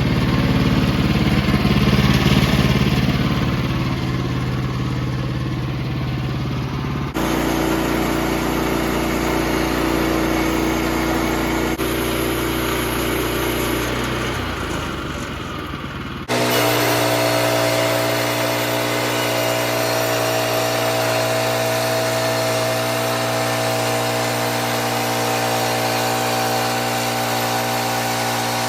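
A small gasoline engine running steadily, with two sudden changes to a slightly different engine note about a third and about halfway through.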